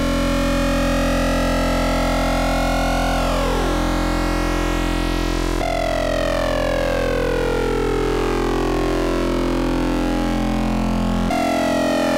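Eurorack modular synthesizer drone from Rossum Trident oscillators wave-spliced through a Klavis Mixwitch: a sustained, buzzy tone with many overtones. About three seconds in, some overtones glide down. At about five and a half seconds and again near the end, the timbre changes abruptly and a group of overtones slides steadily downward as the oscillators are retuned.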